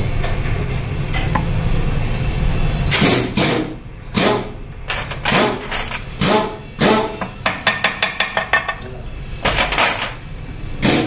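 Sharp metallic knocks and taps on a motorcycle engine's crankcase while it is being split, about a dozen, irregular and some in quick runs, starting about three seconds in. A low steady hum lies under the first three seconds.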